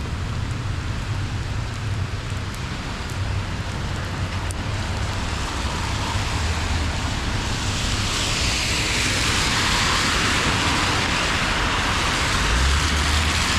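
Street traffic on rain-wet roads: a steady low rumble with tyre hiss, and a vehicle's wet-tyre hiss swelling louder from about halfway through as it passes close.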